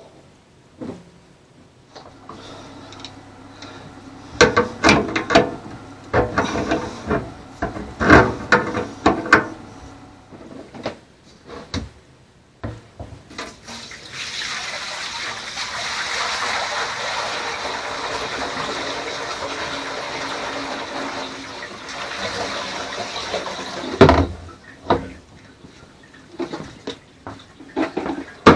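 Knocks and clatter of sink parts being handled, then water pouring steadily into a sailboat's galley sink for about ten seconds to test the reassembled drain and gasket for leaks. A sharp thump comes just after the water stops.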